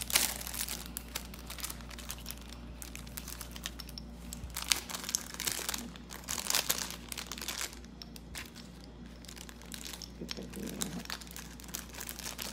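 Thin plastic jewelry packaging crinkling and rustling as it is handled, in irregular clusters of crackles.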